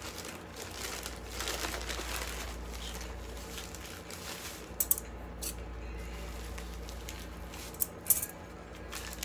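Plastic courier pouch being handled and opened, crinkling and rustling, with sharp clicks about five seconds in and again near the end.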